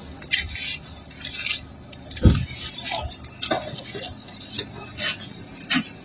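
Irregular light scuffs and crunches of footsteps on dry dirt and gravel, with one heavier thud about two seconds in.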